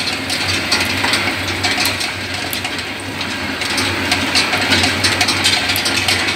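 Olive pitting machine running: a steady low hum with fast, irregular clicking and rattling from its turning drum of pitting needles and olive cups.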